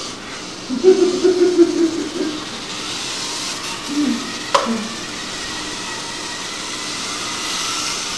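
Small electric RC helicopter in flight, its rotor and motor giving a steady whirring hiss with a faint high whine. A short low voice-like sound comes about a second in and again around four seconds, with a sharp click in between.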